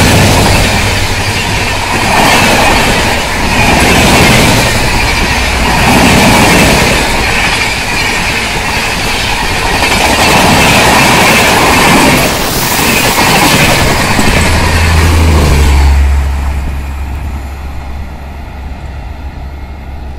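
Long express passenger train's coaches rushing past close by at speed, the wheels clattering on the track in uneven surges. The noise falls away after about sixteen seconds, leaving a much softer hum.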